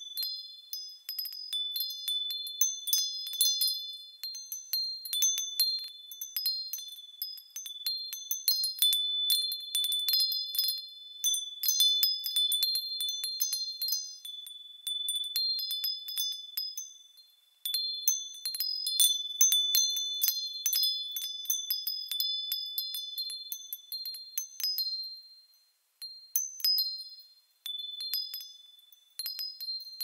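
Wind chimes tinkling: many quick, high-pitched strikes ringing over one another, dying away briefly a couple of times before starting again.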